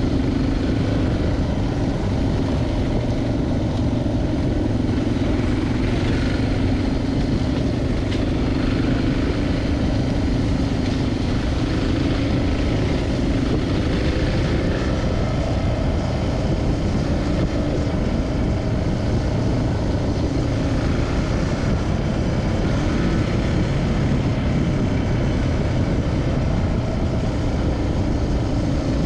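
Suzuki DR650 single-cylinder four-stroke engine running while the motorcycle is ridden, at a fairly steady speed with small changes in engine speed.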